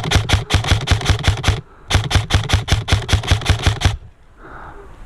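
Airsoft electric gun, a Krytac Trident Mk2 PDW, firing two rapid strings of shots of about eight a second, with a short pause between them. The firing stops about four seconds in.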